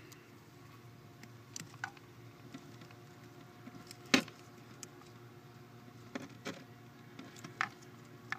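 Small sharp clicks and taps of mini pliers and a plastic wiring connector as a wire's crimped terminal is pushed into its pin slot, with scattered clicks and the loudest about four seconds in.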